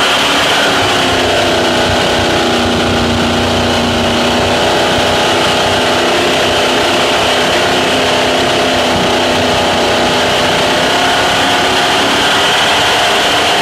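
Speedboat engine running steadily at speed under a strong, even rush of noise, its pitch holding nearly constant with a slight dip at the end.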